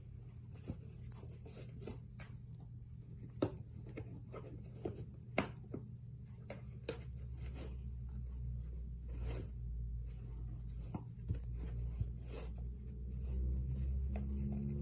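A kitten scrabbling inside a cardboard tissue box, its claws scratching and rustling the tissues and cardboard in irregular scratches and taps, a few sharper than the rest, over a steady low hum.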